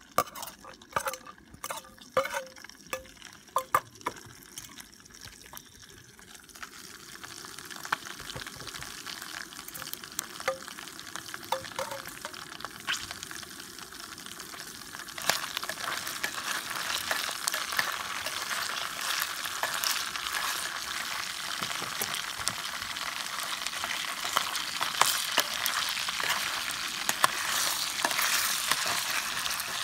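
A metal spoon knocks and scrapes against a small steel bowl several times in the first few seconds. Then bacon starts sizzling in hot oil in an aluminium mess tin, the sizzle building and getting louder about halfway through, with light clicks of a spoon stirring it.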